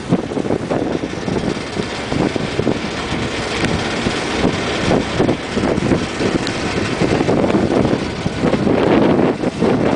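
Wind buffeting the microphone on the deck of a moving ferry, in uneven gusts, over the steady run of the ferry's engine.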